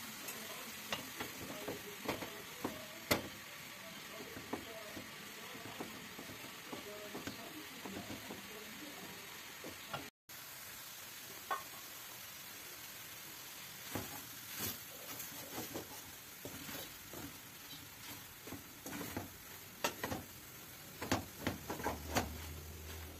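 Chopped herbs frying in a large aluminium pan: a steady sizzle, with a wooden spatula stirring, scraping and knocking against the pan now and then.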